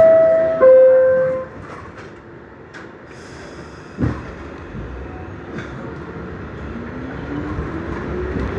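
NYC subway R62A car's two-tone door chime, a higher note then a lower one, followed about four seconds in by a thump. From about six seconds the rumble builds and the traction motors' whine climbs steadily in pitch as the train pulls away and accelerates.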